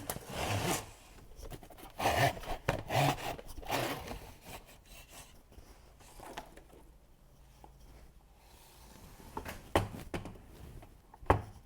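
Rubbing and scraping of packaging as an LED shop light bar is handled and unboxed, loudest in bursts early on and again about two to four seconds in, with two sharp knocks near the end.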